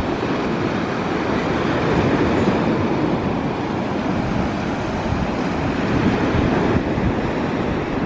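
Steady roar of wind on the microphone mixed with rough sea surf breaking on the shore.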